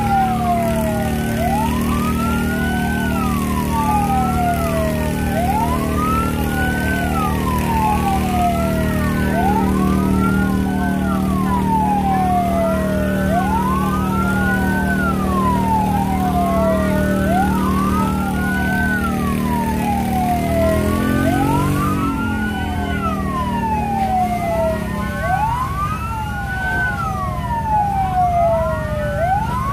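Two fire engine sirens wailing at once, each rising quickly and falling slowly about once every two seconds, overlapping out of step. Beneath them a steady low engine drone dips in pitch and dies away about three-quarters of the way through.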